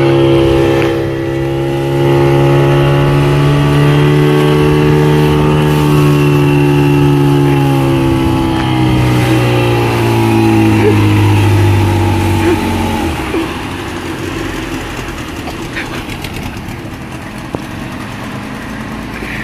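Speedboat engine running hard while towing an inflatable ride tube at speed. About two-thirds of the way through, the engine note drops away as the boat throttles back, leaving a quieter rush of wind and water.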